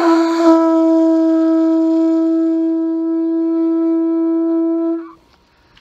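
A homemade conch shell horn, its top cut off and centre drilled out for a mouthpiece, is blown in one long note. The note is rough and buzzy at first, settles into a clean steady tone within the first half second, and stops about five seconds in.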